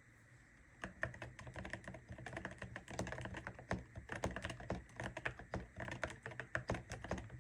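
Fast typing on a Royal Kludge RKS98 mechanical keyboard fitted with heavy Cerakeys ceramic keycaps on Akko Rosewood switches: a steady rapid run of keystrokes starting about a second in.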